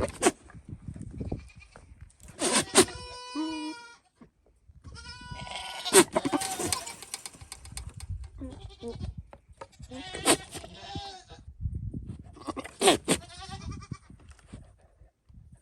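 Nigerian dwarf buck goat in rut making his courting noises at does: a series of about five separate calls with short pauses between them.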